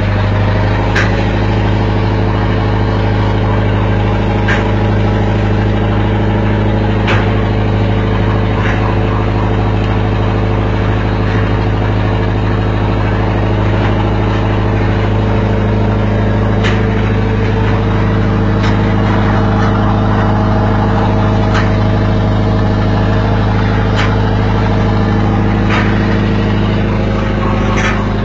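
A sardine fishing boat's engine running steadily with a deep, even hum. A few sharp clicks come at irregular intervals of a few seconds.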